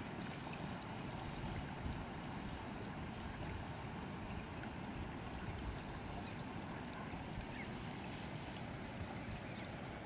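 River water flowing over shallow stones at the bank: a steady, even wash of moving water.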